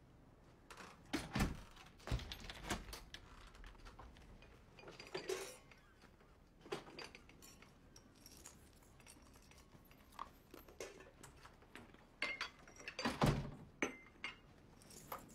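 Breakfast crockery and cutlery being set out on a table: cups, saucers, glasses and a metal dish cover clinking and knocking in scattered small clicks, with a few louder thumps about a second and a half in, around two seconds, and near the end.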